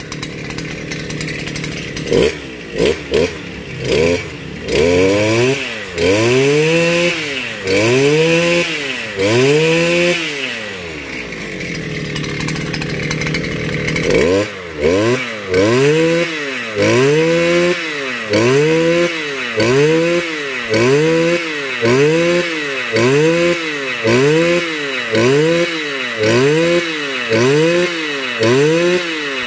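Stihl FS 250 brush cutter's two-stroke engine, new, revved by repeated throttle blips, each rising and falling back. A few quick blips come first, then longer revs about once a second. It drops to idle for a few seconds around the middle, then resumes steady blips about once a second. The fuel mixture has just been set a little richer than the lean factory setting to smooth the idle.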